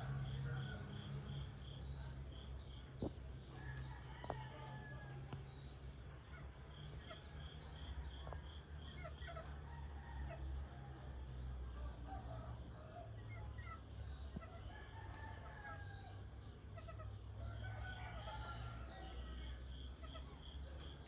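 Roosters crowing and clucking among chirping birds, faint, over a steady high-pitched hum, a high pip repeating about three times a second, and a low rumble.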